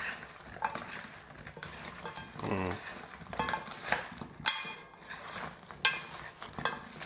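A metal utensil and a wooden chopstick clinking and scraping against a stainless steel frying pan as syrup-glazed sweet potato chunks are tossed, with a few sharper clicks in the second half.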